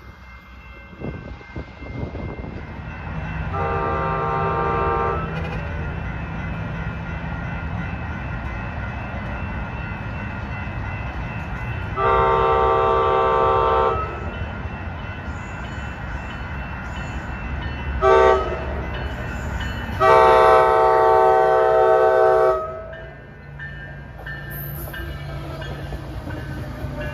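Coaster commuter train horn sounding four blasts as the train approaches: two long, one short, then a longer final blast. The train's steady rumble runs underneath, and near the end the train passes close by.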